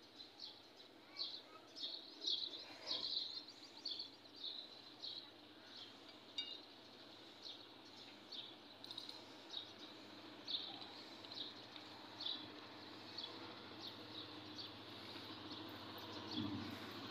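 A small bird chirping over and over, short high calls about one or two a second. Near the end a low rumble begins to rise as a distant approaching train starts to be heard.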